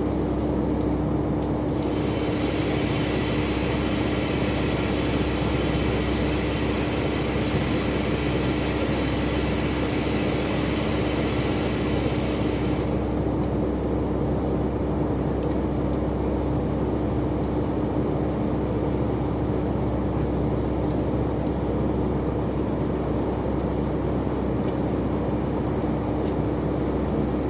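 Steady machine running hum with a constant tone, joined by a hiss from about two seconds in until about thirteen seconds.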